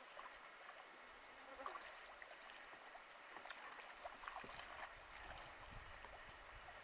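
Faint trickling and small splashes of water with scattered light ticks, and a low rumble in the second half.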